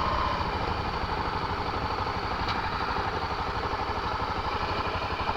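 Honda XR250 Tornado's single-cylinder four-stroke engine running steadily at low revs, with an even, rapid pulsing.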